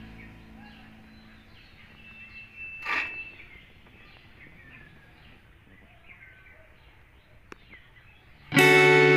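Faint outdoor ambience with small birds chirping now and then, and one louder, short sound about three seconds in. A plucked guitar music track fades out at the start and comes back loudly near the end.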